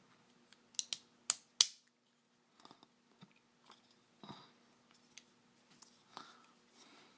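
Plastic parts of a Transformers action figure clicking and snapping as its leg is folded and its foot flattened during transformation. A few sharp clicks between about one and two seconds in, then fainter clicks and handling sounds.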